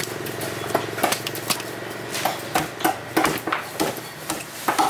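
Sharp, irregular knocks and scrapes of a cleaver on a red snapper and the wooden chopping block, coming faster about halfway through. A motor hums steadily underneath.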